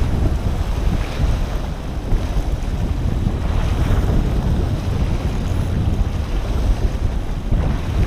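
Wind buffeting the microphone in loud, gusting rumbles, with the wash of water underneath.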